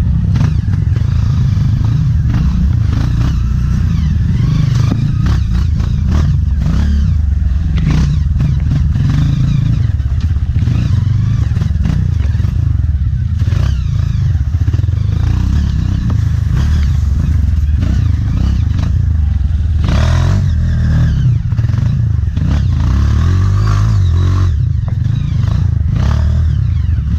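Honda CRF dirt bike's single-cylinder four-stroke engine running under a rider on rough trail, the engine note rising and falling with the throttle, with occasional knocks and rattles from the bike over the ground.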